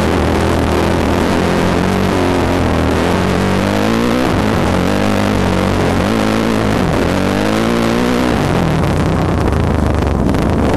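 2007 Yamaha YZ450F's four-stroke single-cylinder engine running as the dirt bike climbs, its pitch rising and falling several times with the throttle and dropping off about eight seconds in. Heard close up through the bike-mounted camera, with wind rushing over the microphone.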